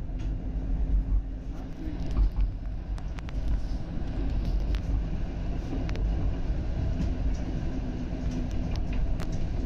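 Toronto TTC streetcar running along its track: a steady low rumble with a faint constant hum and scattered sharp clicks and rattles.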